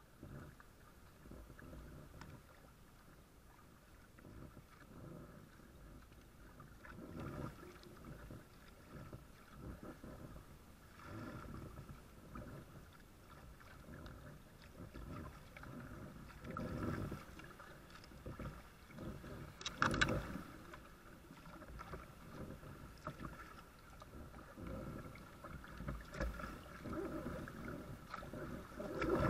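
Kayak moving on a fast, high river: water washing and splashing against the hull, swelling every few seconds as the paddle strokes. A brief sharp knock about twenty seconds in is the loudest sound.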